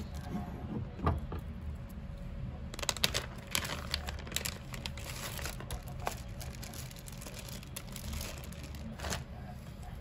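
Plastic packaging of an enoki mushroom pack crinkling and rustling in a rapid, irregular crackle as it is opened and handled, from about three seconds in to near the end. A single knock on the cutting board comes about a second in.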